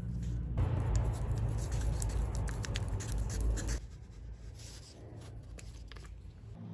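Wooden stir stick scraping and clicking against the sides and bottom of a small plastic mixing cup as resin is stirred, for about three seconds before it stops. A steady low hum lies underneath.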